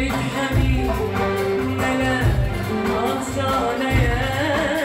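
Live Arabic tarab music: a woman sings into a microphone, backed by a band with violin and keyboard over a steady low beat.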